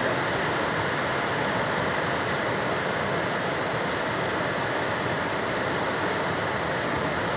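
Flood torrent of water and debris rushing down the river channel: a steady, even roar with no breaks.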